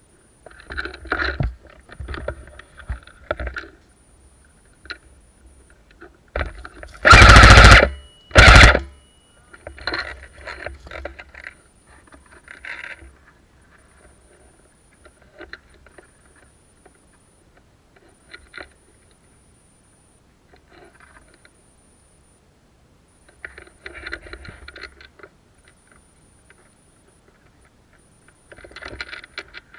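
Footsteps and rustling through forest undergrowth, broken about seven seconds in by two loud bursts of rapid fire, a longer one and then a short one, from an airsoft gun close to the microphone.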